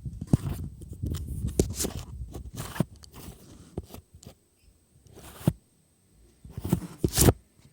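Hands working at packaging: irregular rustling, scraping and tearing, broken by sharp clicks and knocks, busiest at the start and again near the end.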